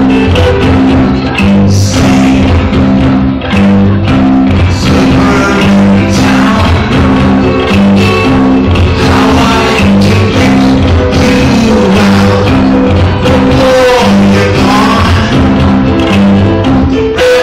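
Live rock band playing a song, with a repeating low bass figure under it and singing at times.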